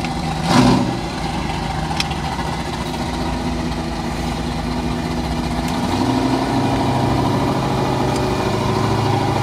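Vehicle engines idling steadily, with a deeper engine note coming in about six seconds in and growing louder, as of another vehicle drawing near.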